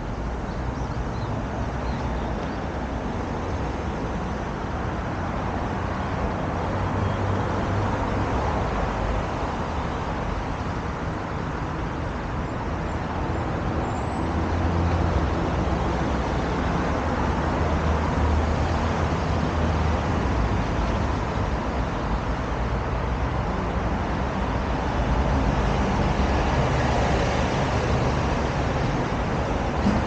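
Road traffic on a wide multi-lane road: a steady rumble and tyre noise from passing cars and buses, swelling as vehicles go by about halfway through and again near the end.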